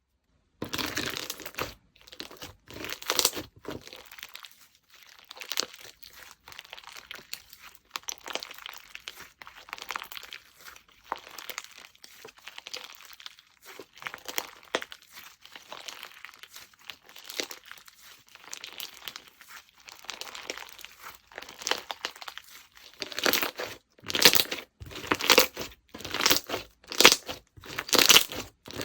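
Slime being squished, stretched and pressed by hand, making irregular sticky crackling and popping. The crackling grows denser and louder near the end.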